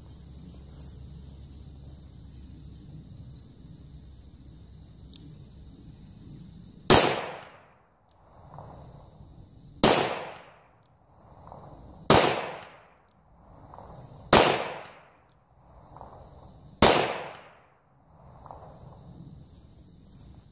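.357 Magnum revolver firing five shots, two to three seconds apart, starting about seven seconds in. The rounds are handloads of 5 grains of Clay Dot shotgun powder behind a 126-grain Lyman cone-nose cast bullet.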